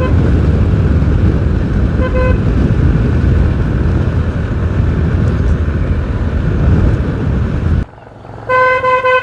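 Motorbike riding on a rough road, the engine and wind making a steady low rumble, with a short horn beep at the start and another about two seconds in. Near the end the rumble drops away suddenly and a longer horn honk sounds.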